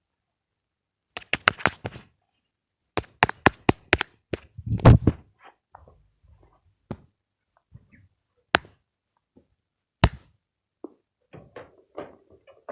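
Irregular knocks and sharp clicks with a small-room sound: a quick run of them about a second in, another run with one heavier thud near the middle, then a few single sharp clicks and small taps towards the end.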